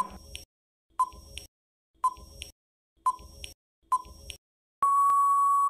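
Quiz countdown timer sound effect: five short electronic beeps, one a second, each with a faint blip after it, then a long steady beep near the end as the countdown runs out.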